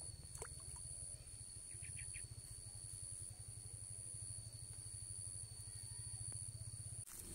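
Outdoor ambience: a steady low wind rumble on the microphone, with a thin high insect-like whine above it and a few short bird chirps about two seconds in.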